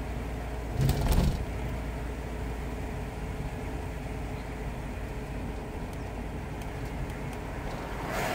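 Inside the cabin of a 1979 Ford Granada 3.0 automatic under way: its 3.0-litre V6 running at a steady low pitch along with road noise, and a brief louder sound about a second in.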